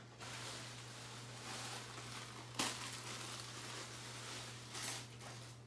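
Handling noises: rustling with a sharp click about two and a half seconds in and a softer knock near the end, over a steady low hum.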